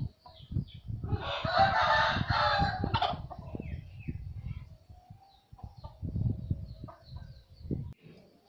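A rooster crows once, a loud call lasting about two seconds that starts about a second in, over low thumps and rumble.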